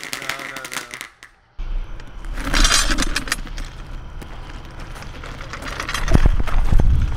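A firework fountain crackling with rapid pops for about a second, cut off abruptly. Then a low rumble of wind and handling on the camera microphone, with heavy footsteps thumping near the end.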